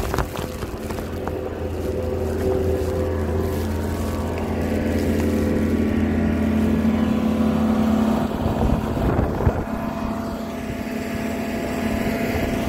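A motor vehicle's engine running close by, a steady hum whose pitch rises a little midway and changes about two-thirds of the way through.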